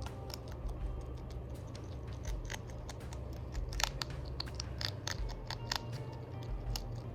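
A hedgehog chewing a crunchy snack: irregular sharp crunches and clicks, loudest about four seconds in.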